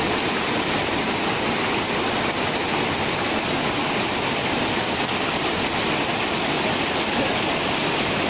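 Whitewater river rapids rushing over rocks: a steady, even rush of water with no change.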